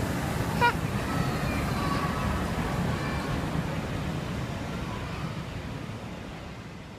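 Steam locomotive Flying Scotsman, an LNER A3 Pacific, and its train moving through a station under an overall roof: a steady rumble and hiss that fades away toward the end as the train draws off. A short, sharp rising squeal sounds about half a second in.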